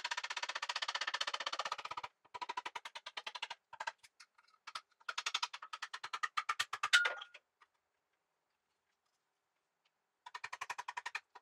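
Ratchet wrench clicking in quick runs of a second or two at a time, working the bolts of the engine's oil pan. A sharp metallic ping comes about seven seconds in, then a couple of seconds of silence before the ratcheting starts again near the end.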